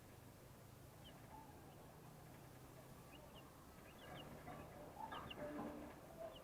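Young broiler chicks peeping faintly, short falling high peeps here and there, with a louder stretch of calls from about four to six seconds in, over a faint low hum.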